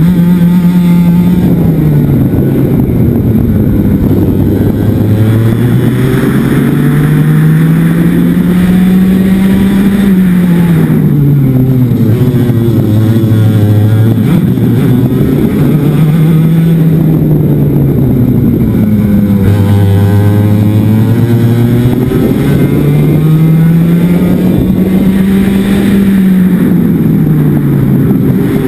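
Racing kart engine heard close up from onboard, its revs climbing for several seconds along each straight and dropping quickly into each corner, over and over through a lap.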